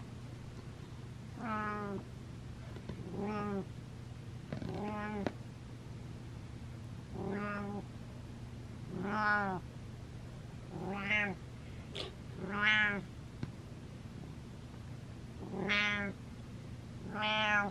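Domestic cat meowing over and over: about nine short meows, one every couple of seconds.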